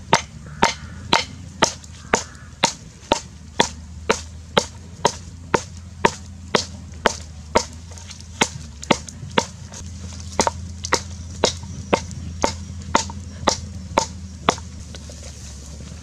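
Lemongrass stalks being struck over and over on a wooden chopping block, a sharp knock about twice a second, stopping shortly before the end.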